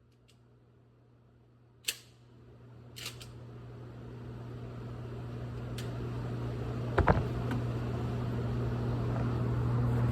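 A few sharp clicks, the loudest a quick double click about seven seconds in, over a steady low hum that grows gradually louder.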